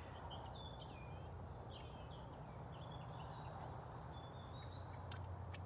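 Small birds chirping, short high calls coming one after another, over a steady low rumble, with a few sharp clicks near the end.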